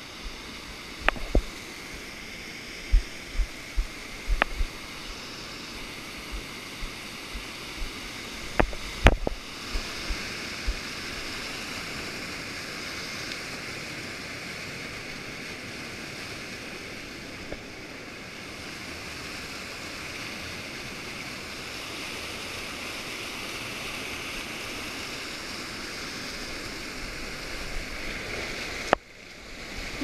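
Steady rush of waterfall water. A few sharp knocks and bumps come in the first nine seconds, the loudest about nine seconds in, and the sound drops out briefly near the end.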